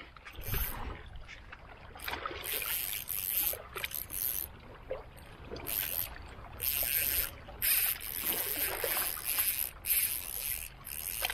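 Fishing reel's drag buzzing in repeated bursts as a hooked fish strips line off the spool, enough that the angler fears being spooled.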